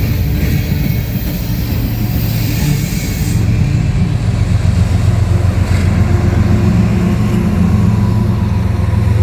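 Freight train rolling past, a steady low rumble that grows louder about three and a half seconds in.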